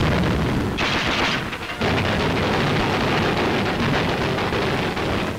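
Shipboard anti-aircraft guns firing rapidly and continuously, a dense stream of shots with a sharper, brighter stretch about a second in.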